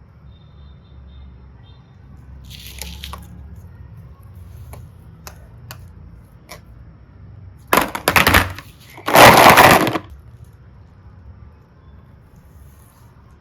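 Handling noises close to the microphone: a few light clicks, then two loud crackling crunches about eight and nine seconds in, the second lasting about a second.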